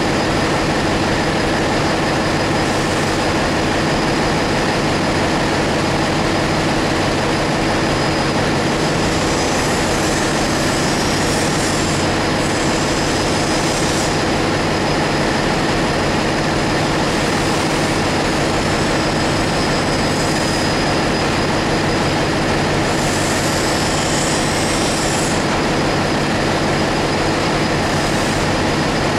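Steady, loud machinery noise of a ship's engine room: a constant roar with several steady humming tones and no let-up.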